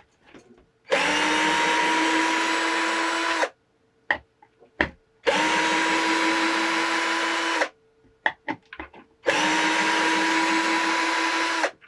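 Viwko 20 V cordless drill in reverse, in screwdriver mode and first gear, backing screws out of wood. Its motor whines steadily in three runs of about two and a half seconds each, with small clicks of handling between the runs.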